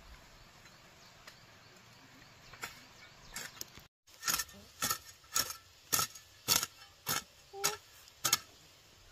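A run of about eight sharp strikes, evenly spaced at roughly two a second, beginning about four seconds in, with a few fainter knocks before them, like a hand tool repeatedly striking a hard material.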